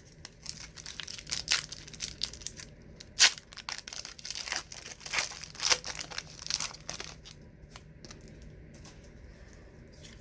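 Foil trading-card pack wrapper being torn open and crinkled, a string of sharp crackles and rustles with one loud snap about three seconds in, dying away after about seven seconds.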